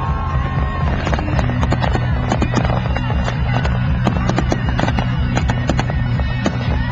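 Fireworks crackling and popping in rapid, dense succession over loud music with a steady bass accompanying the show.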